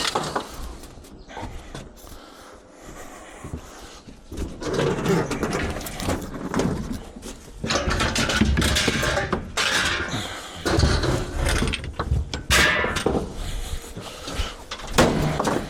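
Scrap metal being handled, most likely a washing machine being worked on and shifted: irregular scraping, rattling and knocking, with a few sharp knocks near the end.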